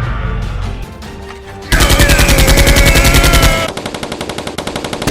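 Background music, then a little under two seconds in a rapid burst of automatic gunfire sound effect cuts in. It is loud for about two seconds, then carries on quieter.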